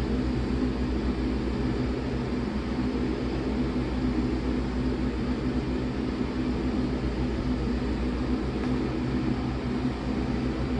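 28-inch commercial shop fan running at full speed: a steady, unbroken rushing drone with a low hum under it.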